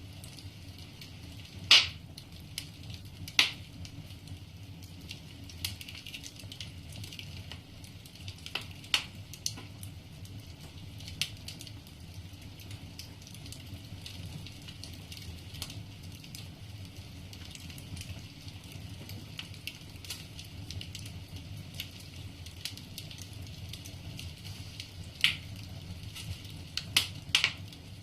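Wood fire in a fireplace crackling, with scattered sharp pops from the burning logs: the loudest about two seconds in, and a quick cluster near the end, over a steady low background.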